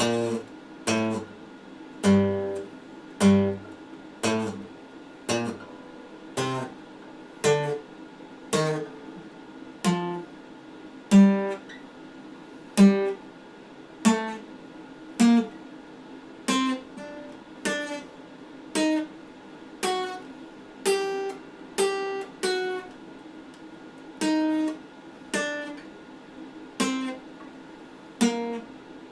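Steel-string acoustic guitar played slowly, one picked or strummed chord about once a second, each left to ring and fade before the next.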